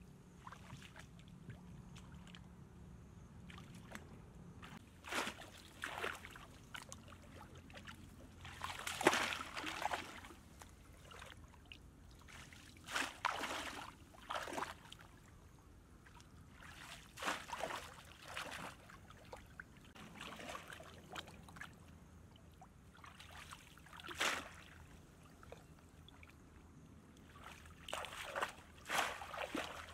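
Barefoot wading through shallow muddy water: irregular splashes and sloshes a few seconds apart, the loudest about nine seconds in.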